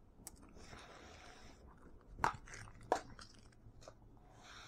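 Faint crinkling of plastic wrap as game card decks are handled, with two sharp taps about two and three seconds in.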